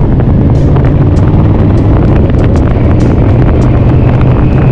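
Yamaha VMAX 1200's V4 engine running steadily at cruising speed, with wind noise on the microphone.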